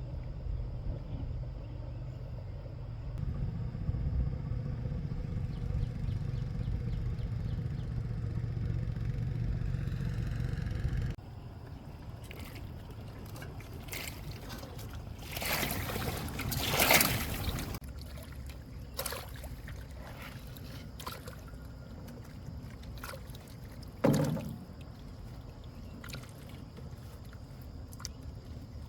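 A small boat motor running steadily, which cuts off suddenly about eleven seconds in. After it, water splashes and sloshes, loudest around the middle, and there is one sharp knock near the end.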